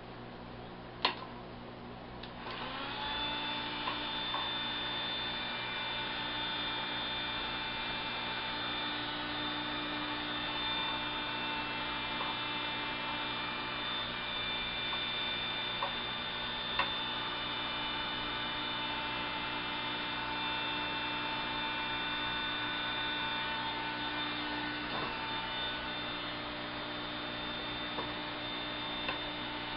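A click, then about two seconds in a heat gun starts up and runs steadily with an even motor whine, heating shrink tubing over a repaired power-cord splice.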